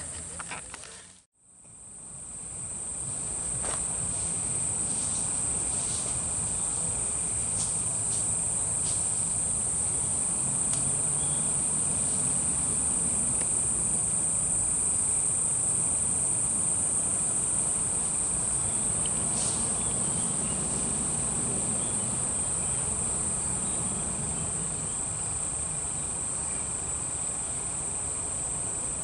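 Insects chirring steadily at a high pitch. The sound fades out briefly about a second in, then returns.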